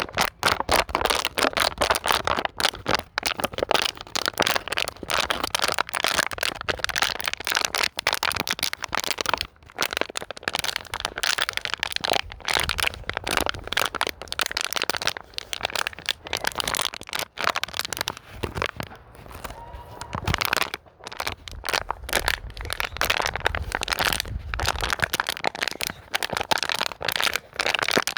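Thin plastic bottle being crinkled and squeezed by hand: a continuous, irregular crackling with short pauses.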